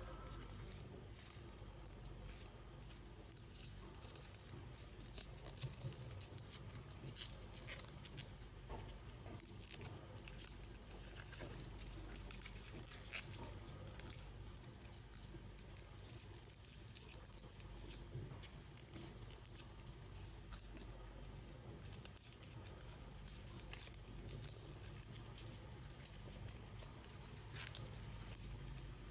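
Sheet paper being handled and folded, with many small, irregular crisp crackles and rustles over a faint steady low hum.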